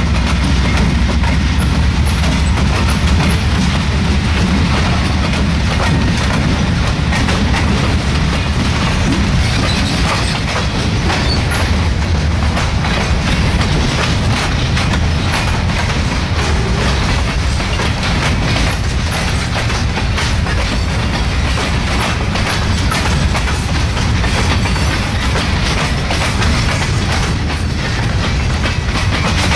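Freight train cars rolling past close by on jointed rail. A steady heavy rumble is broken by the clickety-clack of steel wheels striking the rail joints.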